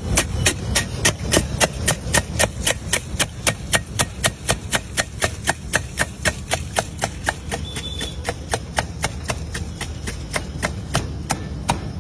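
Crisp puris being crushed and mixed by hand against a steel bowl, making sharp, evenly spaced knocks, about four a second, over a low steady rumble.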